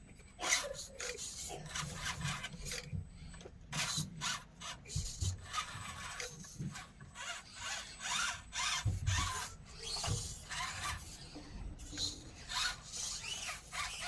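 Axial SCX24 mini RC crawlers working over rough terrain: small drivetrains grinding and clicking in short, irregular bursts, with tyres and chassis scraping.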